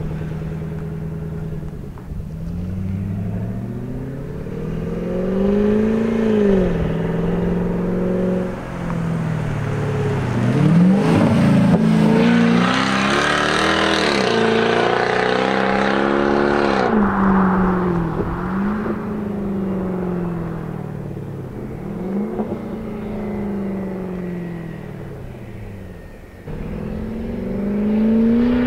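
Lexus LS430's 4.3-litre 3UZ-FE V8 accelerating hard through its aftermarket exhaust with electric cutout, its pitch climbing and dropping back at each upshift. It is loudest in the middle, then fades as the car pulls away.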